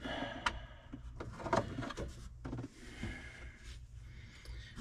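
Hard plastic cab HVAC housing and duct cover being handled and shifted by hand, giving a few scattered clicks and knocks.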